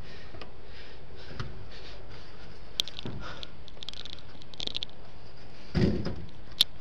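A free-climber's hands and shoes knocking and scraping on a building's metal facade fins: a few sharp clicks, some brief scuffs, and a dull thump near the end, over a steady hiss.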